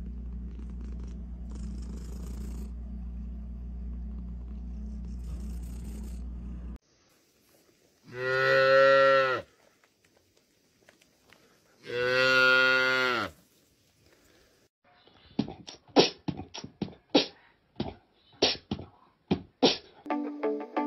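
A cat purring steadily, cutting off suddenly about seven seconds in. Then come two long, low animal calls a couple of seconds apart, which are the loudest sounds, followed by a quick irregular run of sharp clicks.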